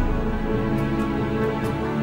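Background music: a slow, soft instrumental with sustained chords and a light regular percussion tick.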